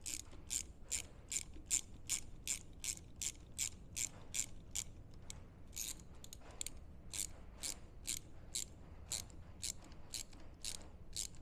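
Small hand ratchet clicking as it is worked back and forth to lightly snug down a bolt on the end of a motorcycle crankshaft. A steady run of sharp clicks, about two or three a second.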